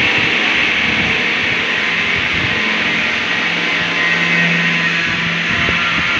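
Electric welding arc hissing and crackling steadily, with a low hum joining from about three and a half seconds in for about two seconds.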